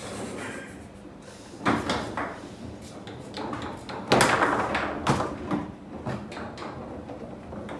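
Foosball table in play: a series of sharp knocks and bangs as the ball is struck by the figures and the rods hit the table. The loudest bang comes about four seconds in, with others near two and five seconds.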